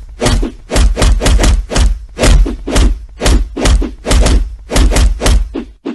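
Loud thumps and whacks in quick succession, about two or three a second, each with a deep low thud.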